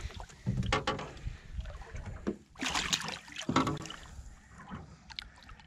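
Scattered knocks and rustling of people moving and handling gear in a small fishing boat, over a low rumble, with a short burst of hiss about two and a half seconds in.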